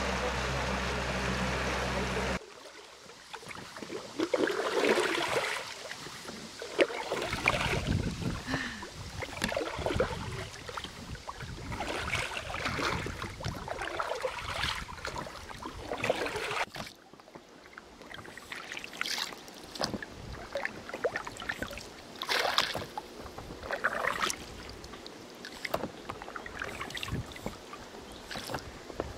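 A motorboat's outboard engine running steadily, cut off suddenly about two seconds in. After that, oars dipping and pulling through the water beside an inflatable rowboat, with irregular splashes and drips.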